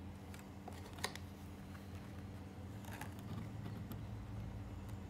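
Faint clicks and soft scraping as putty is worked onto a small die-cast model car body, over a steady low hum; one sharper click about a second in.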